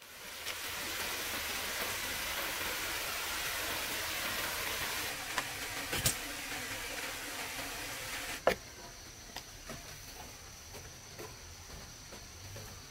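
Water rushing steadily over a concrete spillway for the first eight seconds or so. About two-thirds of the way through a sharp knock cuts it off. After that, insects chirr steadily at a high pitch, with a few light clicks.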